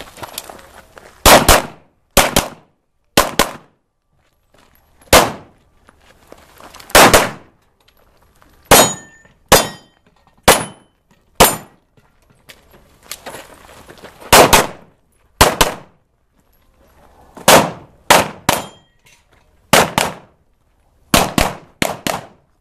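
A string of pistol shots fired at an irregular pace, single shots and quick pairs about one to two seconds apart. A few shots are followed by a brief metallic ring.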